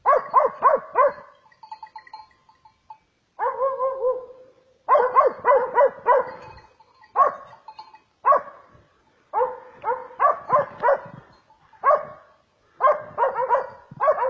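Hunting dog barking at bay in quick runs of three to five barks with brief pauses between them, the steady repeated barking of a dog holding a hog in the brush.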